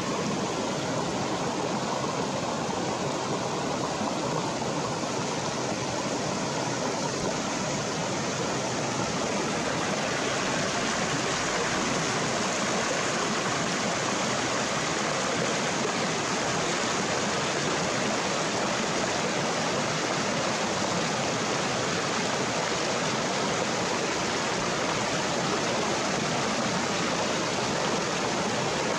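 Stream water rushing over rocks, a steady even rush that grows a little fuller about a third of the way in.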